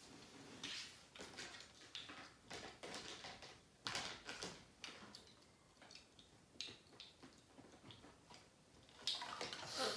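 Light, scattered clicks and taps of plastic toy pieces being handled and set down, with soft rustling that grows denser near the end.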